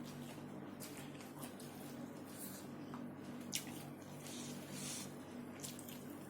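Close-up eating noises: wet chewing and lip smacks with scattered small clicks, the sharpest about three and a half seconds in, over a steady low electrical hum.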